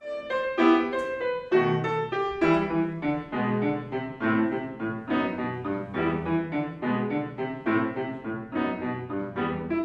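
Yamaha grand piano played solo: a steady stream of notes and chords, two or three a second, starting suddenly after a short silence.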